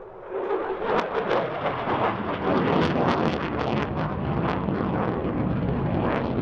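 F-16 fighter jet's single engine as it flies overhead: a loud rushing jet noise shot through with crackling. It swells quickly about a third of a second in and then holds loud.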